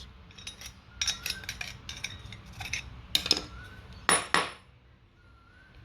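Light metallic clinks and knocks of brass water meter parts being handled, with a short scrape about four seconds in.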